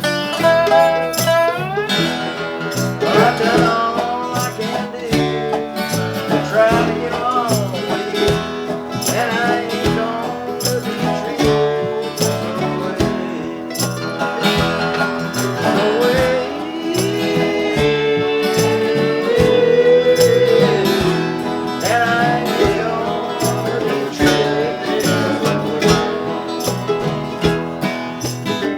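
A band playing a folk-rock song with guitars over a steady drum beat. Around the middle a lead line slides and bends between notes.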